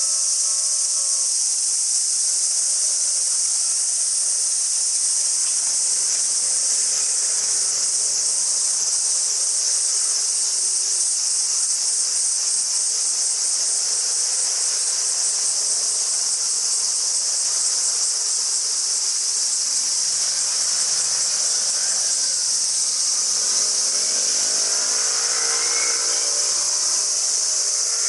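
Loud, steady drone of summer cicadas with a fast pulsing in it. A level-crossing bell stops ringing about a second in. Near the end a pitched hum rises in pitch.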